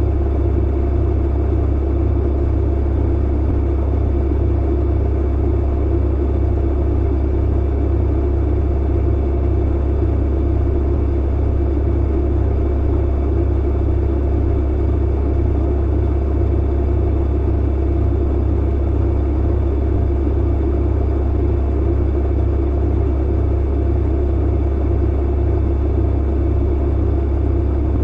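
Clothes dryer running: a steady, unbroken low rumble and hum from the motor and turning drum.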